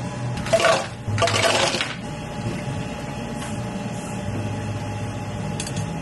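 Drink-making at a cafe counter: two short rattling noises about half a second and a second and a half in, then a low steady hum.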